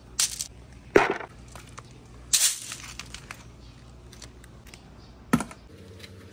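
Glass marbles clattering against each other and the sides of a strainer bowl as it is shaken, in four short, sharp bursts with small ticks between; the loudest is about a second in.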